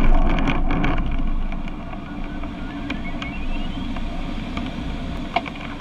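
Glider cockpit noise at speed: a steady low rumble with airflow noise and frequent rattling clicks from the airframe, loudest in the first second. A faint beeping tone climbs in pitch from about two seconds in.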